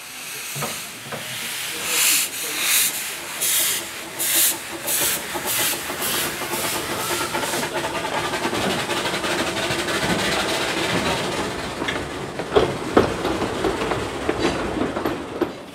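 Small vertical-boiler narrow-gauge steam locomotive, a De Winton-type engine, pulling away with its coaches: hissing steam beats that quicken from about one every 0.7 s to about two a second. Then the coaches roll past with steady wheel noise and a few sharp clicks over the rail joints.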